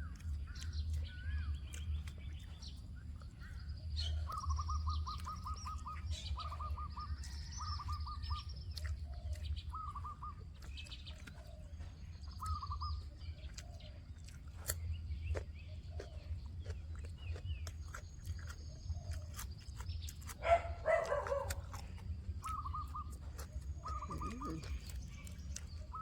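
Small birds chirping, with repeated short trilled calls and higher chirps, and one louder call about twenty seconds in. A steady low rumble runs underneath.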